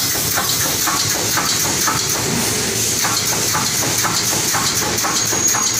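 Pneumatic wire-mesh welding machine for chicken cages running: an even, rapid clatter of about four to five strokes a second over a steady hiss.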